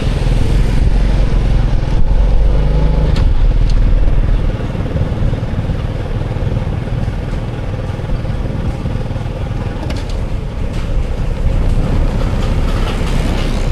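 Road traffic with motorbike engines passing close by, loudest over the first four seconds, then settling to a quieter steady rumble.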